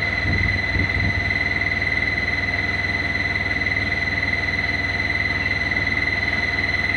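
Samsung Digital Inverter washing machine on an empty spin, running at speed with a steady high-pitched whine over a fast low rumble. The owner calls it a very bad sound.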